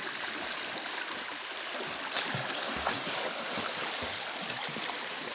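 Shallow rocky creek running steadily, a constant rushing hiss of water over stones, with a couple of brief sharp sounds about two and three seconds in.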